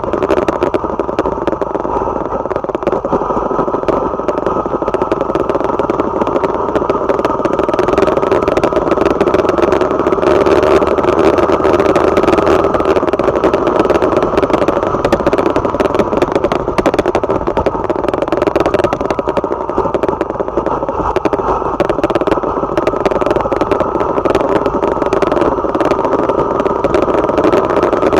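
Small motorcycle engine running steadily while riding at cruising speed, with wind and road rumble on the bike-mounted microphone. The level swells slightly partway through, then holds.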